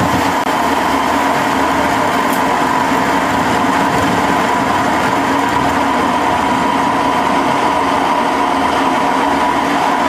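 Metal lathe running steadily with an indexable-insert tool cutting the end of a hardened tool-steel bar, with a constant whine over the machine hum.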